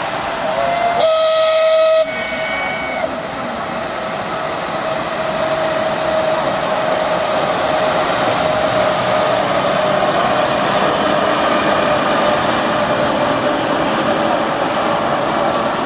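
A loud signal whistle of several tones sounds for about a second, about a second in, and cuts off sharply. Then a ČD class 371 electric locomotive hauls its passenger train along the platform with steady running noise and a steady whine from its traction equipment.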